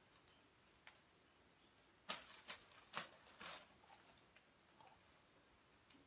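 Thin plastic carrier bag crinkling as small hands handle it: a few faint clicks, then a quick run of short crackles about two seconds in, tapering to a few soft ticks.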